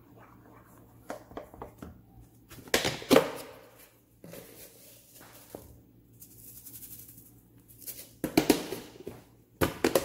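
Wooden spoon stirring thick cornmeal porridge in a pan, with irregular bursts of scraping and knocking against the pan, loudest about three seconds in and again near the end.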